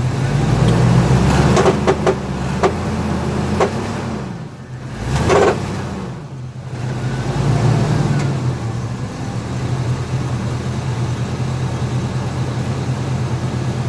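2002 Cadillac Escalade AWD running, with several sharp pops over the engine in the first few seconds. This is the popping noise the owner is recording. The engine note rises briefly about five seconds in and again around eight seconds, then settles to a steady run.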